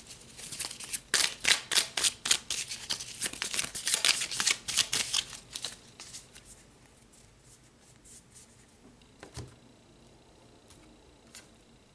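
A deck of tarot cards shuffled by hand: a rapid run of flicking card sounds for about five seconds, then it mostly stops, leaving only a few soft taps.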